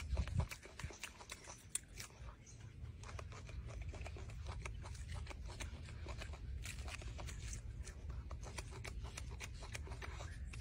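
Golden snub-nosed monkey eating an orange: irregular small crunches and clicks of biting and chewing the fruit and peel, over a steady low rumble.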